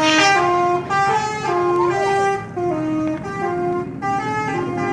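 Bus 'telolet' horn, a multi-tone musical air horn, playing a tune of short held notes that step up and down in pitch about every half second.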